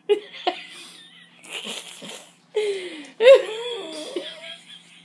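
A girl's squeals and giggles, with several falling and wavering cries, as she reacts to the extreme sourness of Extreme Sour Patch Kids candy in her mouth.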